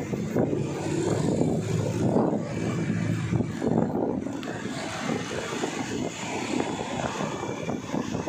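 A motor engine running with a steady, continuous drone.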